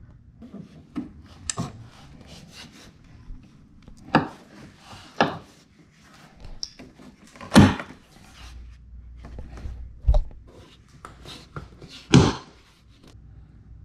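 A WeatherTech splash guard being pushed and worked into place against a car's wheel well by hand: rubbing and scraping with several sharp knocks and clicks, the loudest near the middle and near the end.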